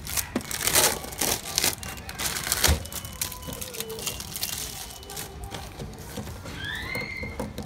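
Pink low-density polyethylene anti-static bag crinkling as hands handle and smooth it: dense, sharp crackling in the first three seconds, then softer, scattered rustling.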